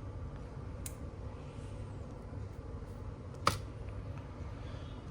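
A low, steady background rumble with a single sharp click about three and a half seconds in, and a fainter tick about a second in.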